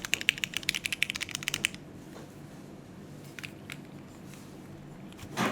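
Fast typing on a Neo65 Core Plus mechanical keyboard with an aluminium plate, Cherry MX2A switches and GMK keycaps: a rapid run of key clacks that stops about a third of the way in, then a couple of single key presses and a louder clack near the end.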